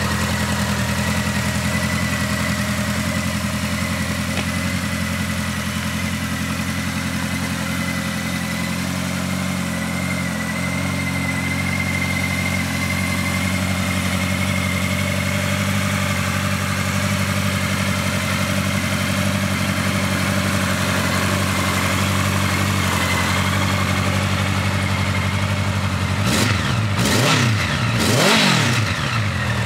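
Honda CB1100EX air-cooled inline-four idling steadily through its exhaust. Near the end the throttle is blipped twice, the revs rising and falling quickly each time.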